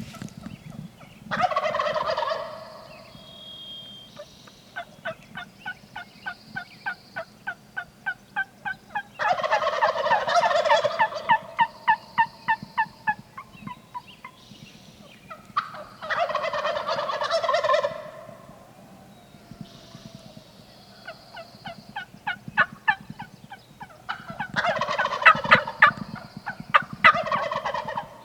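Wild turkey gobbling, five loud rattling gobbles, with runs of quick, sharp turkey yelps and clucks in between, about five notes a second.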